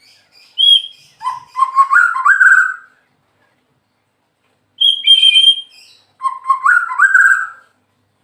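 White-rumped shama singing two phrases a couple of seconds apart. Each phrase opens with a few high notes and then runs into a series of clear whistles that step upward in pitch.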